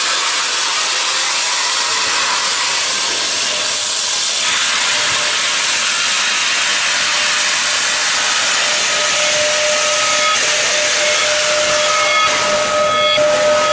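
Steam locomotive venting steam with a loud, steady hiss. About nine seconds in, a steady singing tone comes in over the hiss and grows stronger near the end.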